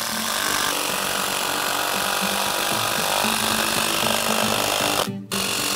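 Cordless impact driver running hard, driving long wood screws through one 2x4 into another; it stops for a moment about five seconds in and starts again.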